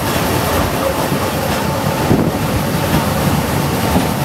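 Hong Kong Peak Tram, a cable-hauled funicular car, running on its rails: a loud, steady rumble of wheels and running gear with a faint steady whine.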